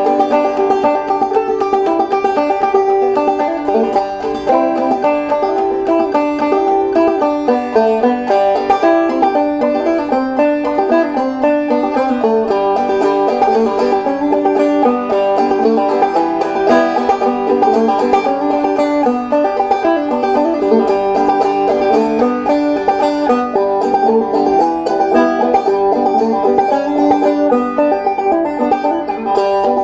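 An 11-inch walnut open-back banjo with steel strings, a rolled brass tone ring and a goatskin head, played solo as a fast, steady run of plucked notes through a Pisgah Eclipse compensated, 3D-printed bioplastic bridge.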